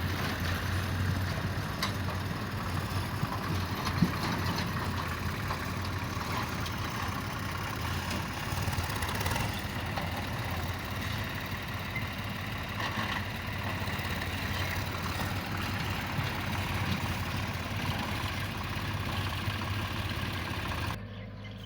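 Heavy excavator's diesel engine running steadily with a low hum, with a single sharp knock about four seconds in. The engine sound drops away abruptly near the end.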